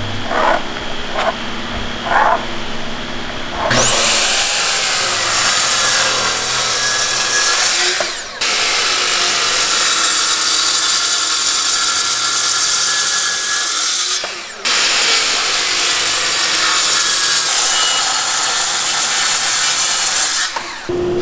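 A few light taps and scrapes as a board outline is marked, then a Festool plunge-cut track saw starts with a rising whine about four seconds in and cuts along its guide rail through a wood slab. The loud cutting noise is broken by two brief gaps.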